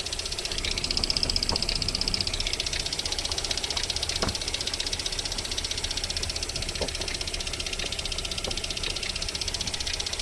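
VAZ 21127 1.6-litre 16-valve four-cylinder engine running with a fast, even rhythmic knocking, briefly louder about a second in, and a few separate single knocks. This is the unexplained warm-up knock that the owner reports until the engine reaches about 40 °C, after which it goes away.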